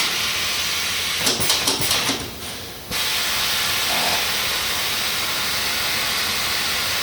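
Steady compressed-air hiss from a pneumatic tyre-changing machine, with a short burst of clattering about a second in and a brief break just before three seconds.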